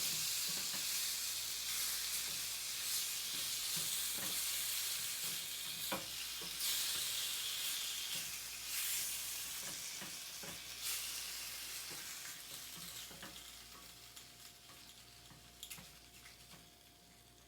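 Food sizzling in a frying pan while being stirred, with scattered light taps of a utensil against the pan. The sizzle fades gradually over the second half.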